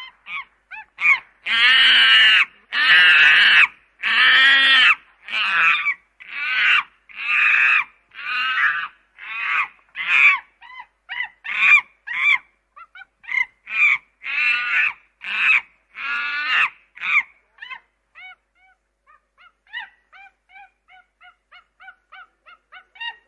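White domestic ducks quacking: a run of loud, drawn-out quacks about one a second, giving way about two-thirds of the way through to fainter, shorter calls.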